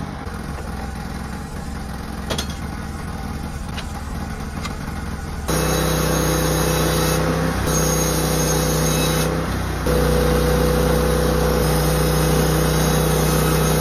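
Norwood LumberPro portable bandsaw mill's gas engine idling, then, about five seconds in, switching to a louder, steady run at high speed as the band blade saws a cedar dock-pole log, with a couple of short dips.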